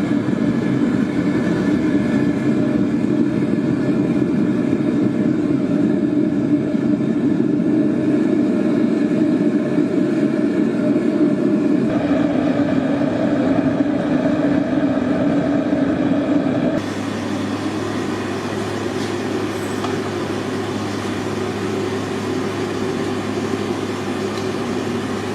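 Machinery running steadily with a hum and several held tones. The sound changes abruptly about twelve seconds in, and again about seventeen seconds in, where it gets a little quieter and a deeper hum comes in.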